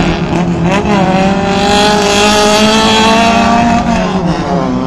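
Autocross race car engine under hard throttle: its pitch climbs about a second in, holds high and steady, then drops off near the end as the driver lifts.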